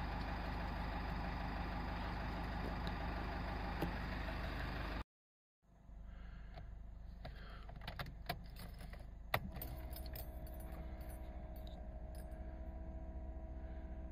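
Steady noise that cuts off abruptly about five seconds in. Then keys rattle and click at the ignition of a Nissan Skyline R33 GT-R, a sharp click comes a little after nine seconds as the key turns to on, and a steady hum follows while the engine is not yet started.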